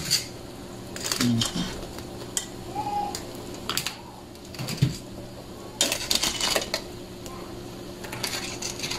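Cookware and utensils clinking and clattering in short, scattered knocks as a pot of boiled crabs is handled, over a steady low hum.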